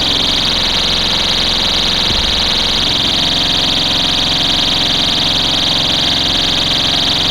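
STI Stopper pull-station cover's built-in alarm horn sounding: a loud, steady, high-pitched electronic tone that does not pulse. A brief low bump about two seconds in.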